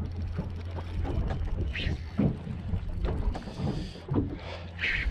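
Spinning reel being wound under load while a hooked fish pulls on a hard-bent light rod, its gears ticking. Two short hissing rushes come about two and five seconds in, over a steady low rumble.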